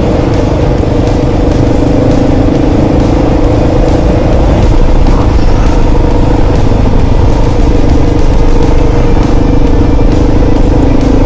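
Kawasaki KLR650's single-cylinder engine running at a steady pace while riding, under heavy wind rumble on the microphone.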